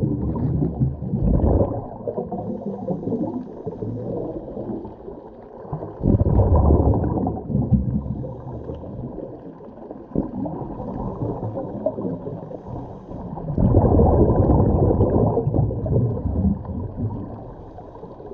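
Scuba diver's exhaled bubbles from a regulator, heard underwater through a GoPro housing: three loud, muffled bubbling bursts about seven seconds apart, with quieter low rumbling noise between breaths.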